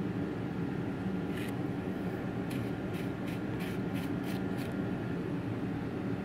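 About eight short, scratchy scraping strokes over roughly three seconds in the middle, over a steady low hum.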